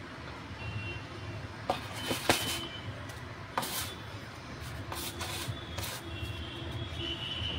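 Dry breadcrumbs rustling and scraping in a plastic bowl as fingers scoop and press them onto a chicken cutlet, in several short bursts, over a steady low background hum.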